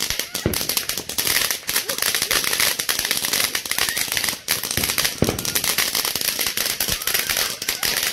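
Small ground fireworks going off on pavement, a dense run of rapid crackling and popping.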